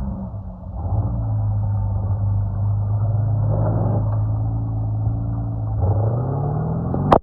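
Four-wheel-drive vehicle's engine running hard under load, the revs picking up about a second in and holding steady, then climbing sharply near the end before cutting off abruptly.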